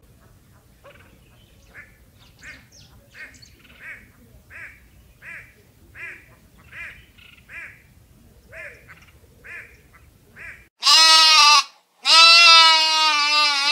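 Animal calls: a run of faint, short calls repeating about every half to three-quarters of a second, then near the end one loud short call followed by a longer, wavering loud call.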